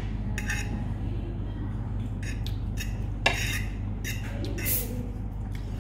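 Cutlery and dishes clinking and knocking on a restaurant table during a meal, over a steady low hum, with a brief hiss near the end.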